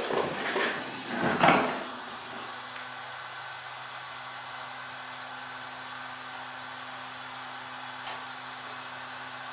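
Temperature-controlled heat gun blowing steadily, with a low motor hum under the rush of air, heating the phone to soften the screen adhesive. A few brief scraping and handling noises come in the first two seconds, the loudest about a second and a half in, and there is a short click near the end.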